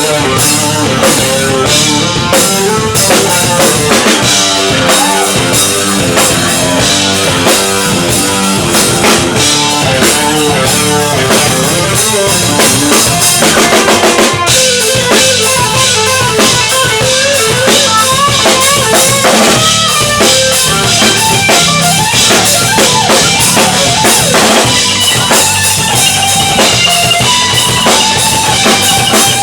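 Live rock band playing loud, with a full drum kit (kick, snare, rimshots) driving a steady beat under guitars and bass; the music starts abruptly at the beginning.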